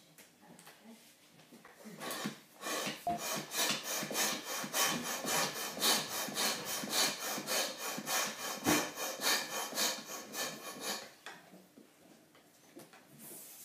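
Hand balloon pump worked in quick back-and-forth strokes, a repeated rasping hiss of air, inflating a balloon. The pumping starts about two seconds in and stops about eleven seconds in, with softer handling sounds of the pump and balloon before and after.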